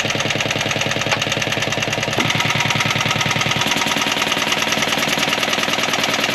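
Small Bukh marine diesel engine idling with a steady, rapid knock, running on because it will not shut off; the owner suspects a wire was knocked loose. About two seconds in the sound turns brighter and a little louder.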